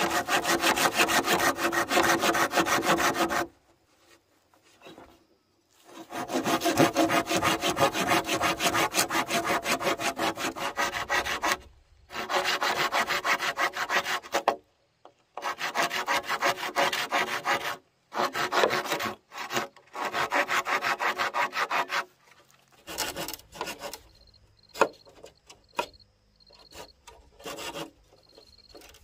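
Hand saw cutting through wood in rapid back-and-forth strokes, in bouts of a few seconds separated by short pauses. Near the end the sawing stops, leaving a few scattered light knocks.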